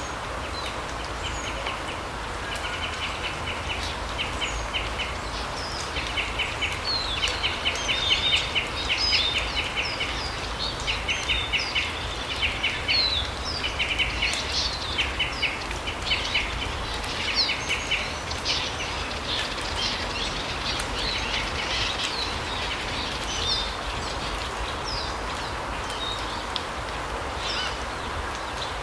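Small forest songbirds calling: repeated rapid, chattering trills and short high chirps, thinning out in the last third, over a steady background rush.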